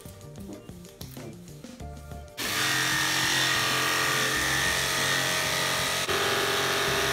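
Makita jigsaw starting about two and a half seconds in and running steadily as its blade cuts out a sign panel laid on a styrofoam slab, with a brief dip about six seconds in. Background music plays throughout.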